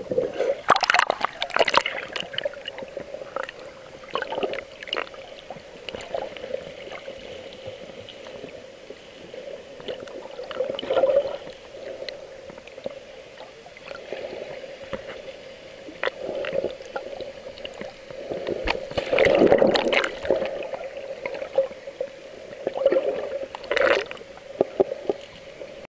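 Muffled underwater water noise heard through a sealed waterproof camera housing: gurgling and bubbling with scattered small clicks. It swells every few seconds and has louder splashy bursts about a second in, about two-thirds of the way through, and near the end as the camera nears the surface.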